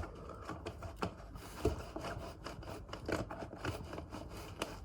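Faint scraping, rubbing and scattered light clicks of a speedcube being worked out of its tight-fitting packaging.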